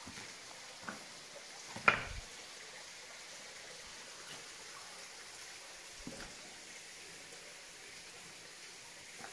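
A few sharp knocks over a faint, steady hiss: a small one about a second in, the loudest about two seconds in, and another about six seconds in.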